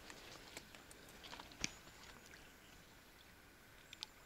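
Near silence, broken only by a few faint, brief clicks, the clearest about one and a half seconds in and two more near the end.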